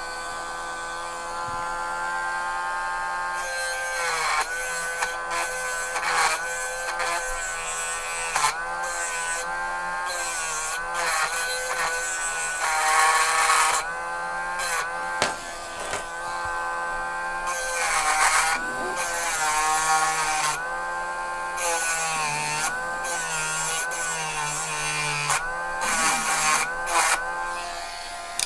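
Dremel rotary tool running with a steady high whine whose pitch dips each time the bit bears down, broken by repeated bursts of harsh grinding as it cuts into the metal base of a 1/64 die-cast model car to free it from its rivets. The tool stops near the end.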